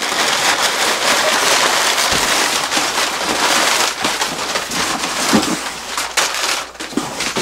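Brown kraft packing paper crinkling and rustling without a break as it is pulled in handfuls out of a cardboard box and tossed aside.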